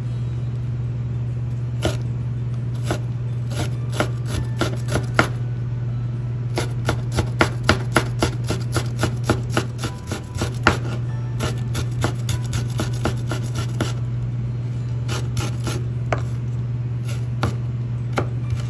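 Serrated kitchen knife slicing a green chili on a plastic cutting board: quick irregular taps of the blade striking the board, several a second in bursts, over a steady low hum.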